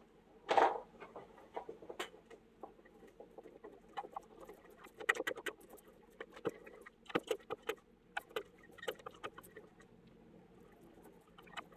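Hand ink roller (brayer) rolling black lino-printing ink out on a plastic tray: an irregular sticky crackling patter from the tacky ink, in clusters, with a louder knock and rustle about half a second in as the roller is taken up.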